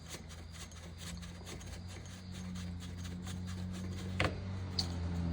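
PCP air tube being unscrewed by hand from an air rifle: metal threads rubbing with a run of faint ticks over a low steady hum that slowly grows louder, and one sharper click about four seconds in.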